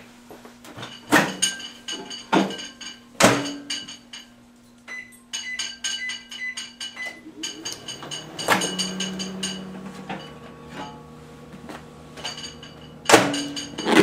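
Microwave oven being loaded and started: a few knocks as the bowl goes in and the door shuts, two runs of short keypad beeps as the cook time is entered, then from about halfway a click and a steady low hum of the oven running. A sharp knock comes near the end.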